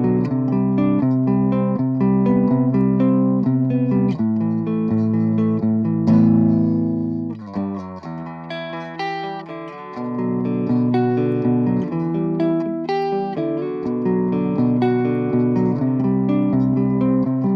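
Electric guitar played through a Cort MX15 practice combo amplifier: quick picked notes, a loud held chord about six seconds in that rings out, a quieter passage, then picked lines again.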